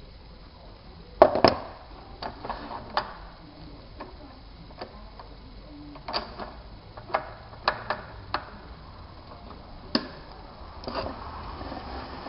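Irregular metal clicks and knocks as a chuck key tightens a small lathe's three-jaw chuck and the tool rest is set in place, the loudest knock about a second in.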